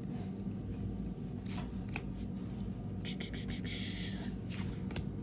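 Trading cards being handled and flipped through: light clicks and soft slides of card stock against card stock, with a longer sliding rustle about three to four seconds in.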